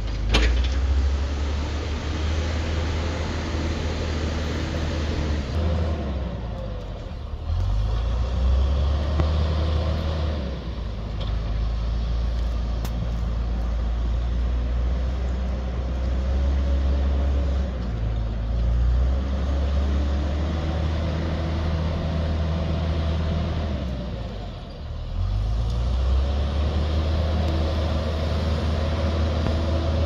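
John Deere backhoe loader's diesel engine running while it plows snow, its note shifting up and down every few seconds as the machine works.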